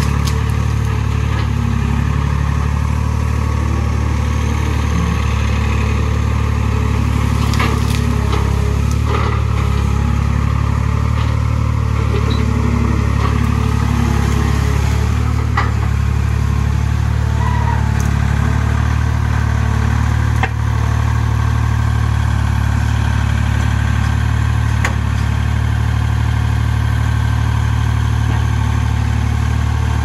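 Skid loader's engine running steadily at a constant speed, with a few brief knocks and clanks now and then.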